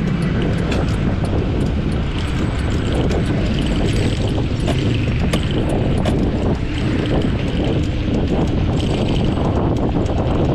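Wind buffeting the microphone of a camera on a moving bicycle, a steady rumbling rush mixed with tyre noise on the road, with light ticks every so often.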